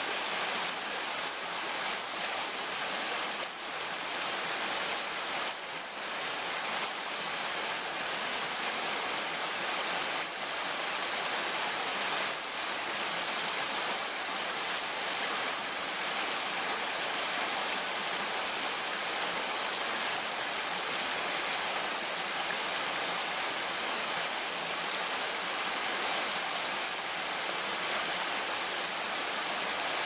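Small rocky brook babbling steadily as water spills down a low cascade over stones.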